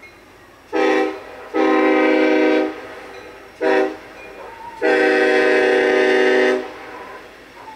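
First-generation Nathan Airchime K5LLA five-chime horn on a Union Pacific SD70ACe locomotive, loud, blown as a short blast, a long blast, a very short blast, and a final long blast held almost two seconds: the end of a grade-crossing warning.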